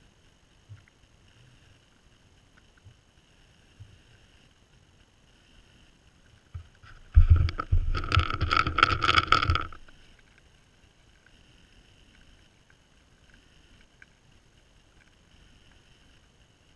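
Whitetail buck nosing the GoPro at close range: a loud burst of rapid sniffing and rubbing against the camera, lasting about two and a half seconds in the middle.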